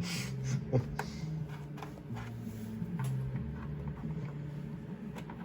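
Faint clicks and scrapes of plastic opening tools working at an Xbox One S's plastic case, a few sharp ticks scattered through, over a low droning background.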